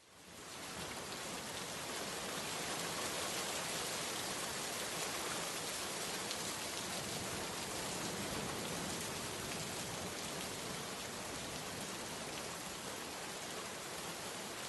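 Steady rain falling, a dense even hiss of drops that fades in over the first second and then holds steady.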